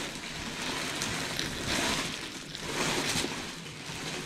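Thin plastic packaging bag rustling and crinkling in swells as a jacket is pulled out of it.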